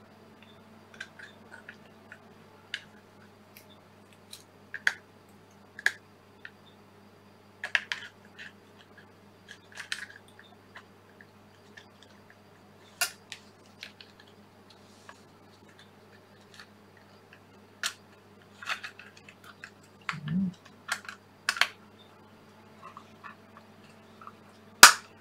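Scattered plastic clicks and taps of a 9-volt battery being worked into the tight battery compartment of a Rode VideoMic, with the loudest snap near the end, over a steady low hum.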